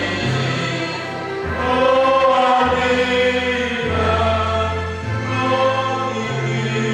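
A congregation singing a hymn together, in slow, held notes.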